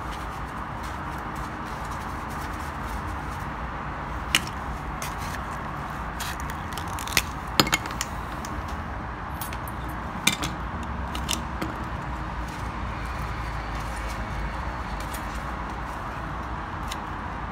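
Small toy train parts being handled on a workbench: a few scattered sharp clicks and clinks of plastic and metal pieces over a steady background hiss.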